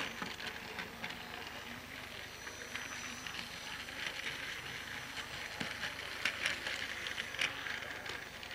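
Plarail battery-powered toy train running on plastic track: its small motor and gears whirring with a thin high whine and frequent rattling clicks, the loudest clicks in the second half.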